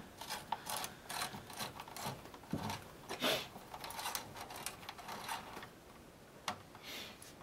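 A screwdriver tightening the spring-loaded heatsink screws over a laptop CPU: a run of small, quiet, irregular clicks and scrapes.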